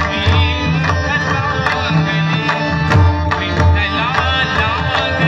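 A large massed ensemble of pakhawaj barrel drums played by hand in unison, with deep, resonant strokes, accompanying a melismatic sung Marathi abhang (devotional song) whose voice glides above the drums.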